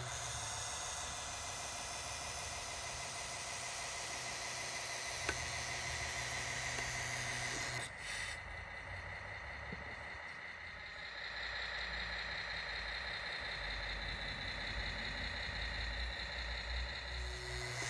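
Scale radio-controlled Unimog model running with a steady mechanical hum, whine and light rattle while its tipper bed raises on a telescopic cylinder. There is a brief dip about eight seconds in, and a stronger low rumble and whine after it.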